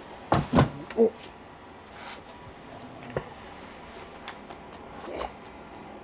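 Close-up mouth noises of a man eating: a few loud wet smacks and chews in the first second, then a sharp click about three seconds in and a softer smack near the end.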